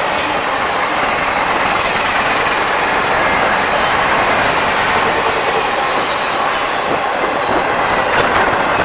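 Intermodal freight cars, double-stack container well cars and flatcars, rolling past at track speed: a steady, loud wheel-on-rail rumble. Sharper clicking from the wheels comes in near the end.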